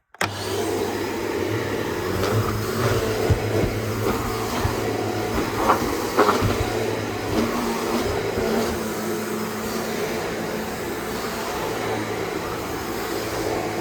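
Shark NZ780UKT corded upright vacuum cleaner switching on just after the start and then running steadily as it is worked over a rug and carpet, with two short clicks about halfway through.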